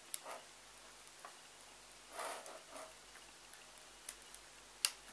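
A metal spoon spreading soft icing over a cake in a paper-lined tin: faint scraping and squishing, with a few light taps and scuffs. A sharp click near the end is the loudest sound.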